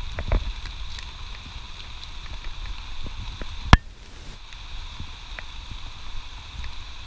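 Steady rain falling on the garden. In the first half-second, a small hand cultivator scrapes and knocks in the wet soil. About three and a half seconds in there is one sharp, loud click.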